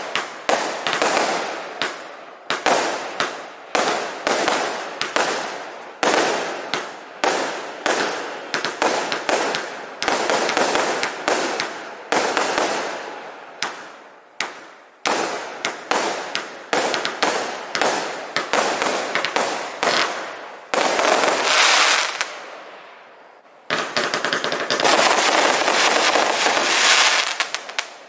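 A FIRE CLUB "KENDO" 200-shot firework cake firing: a long succession of sharp bangs, about one or two a second, each trailing off before the next. The shots thicken into dense rapid fire in the last few seconds.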